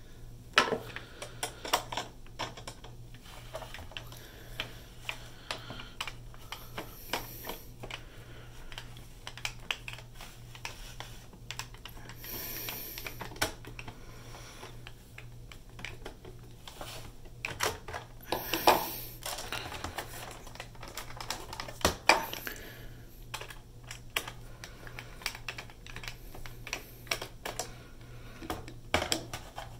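Small Phillips screwdriver working the tiny screw out of a PS4 Slim's hard-drive bay. Irregular small clicks and taps of metal on plastic run throughout, with a few louder scrapes about 12, 18 and 22 seconds in.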